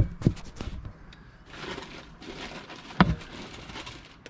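Vintage drinking glasses being handled: a few sharp knocks, at the start, a moment later and again about three seconds in, with rustling in between as items are taken out of a box.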